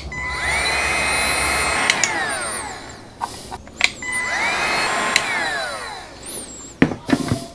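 Cordless heat gun's fan running twice, each time for about two and a half seconds, while it shrinks heat-shrink butt-splice connectors. Each run starts with a click and a rising whine, holds steady, and ends with the whine falling away.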